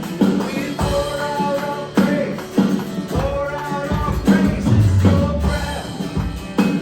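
Live worship band playing a slow contemporary worship song, with held melody notes over a steady drum beat.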